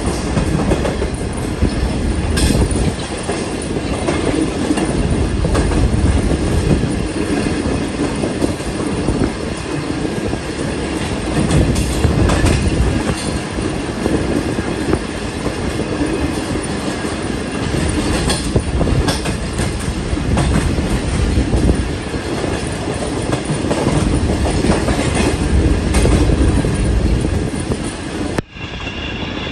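Passenger train running along the track: a steady rumble with wheels clicking over rail joints.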